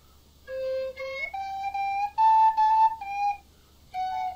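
Plastic recorder blown by a horse while a man fingers the holes: a short run of held, breathy notes, starting low about half a second in and stepping up in pitch, then a brief pause and one more note near the end.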